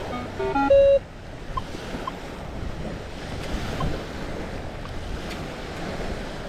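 A run of short electronic tones ends in a loud held tone about a second in. After it comes steady wind noise on the microphone over lapping water, with a few faint short beeps.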